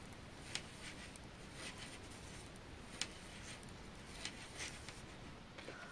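Faint, irregular light clicks and rustles of two knitting needles working yarn, with the sharpest click about three seconds in.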